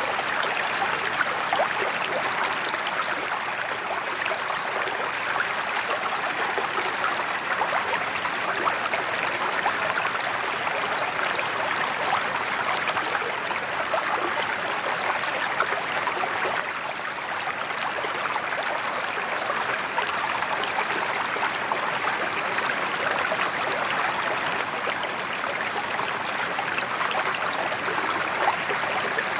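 Water pouring steadily from a sheet-waterfall spillway into a koi pond, an even, continuous splashing.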